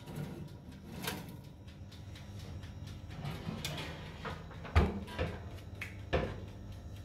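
A baking tray is slid into a countertop oven and its glass door is shut: a few light metallic clicks and knocks, then two heavier thumps about five and six seconds in. A low hum comes in near the end.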